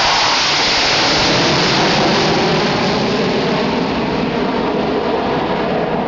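Jet noise from four twin-engine Su-27 fighters passing close overhead in formation: a loud rushing noise whose hiss dies away after about three seconds, leaving a lower rumble as the formation flies off.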